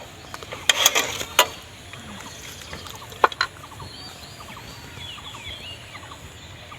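A few sharp clicks and knocks, a cluster in the first second and a half and two more about three seconds in, followed by birds chirping with short rising and falling calls.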